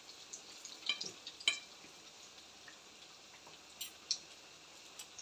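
Potato-and-tuna balls frying in a pan of hot oil, a steady soft sizzle, with a metal fork clicking against the pan several times as they are turned.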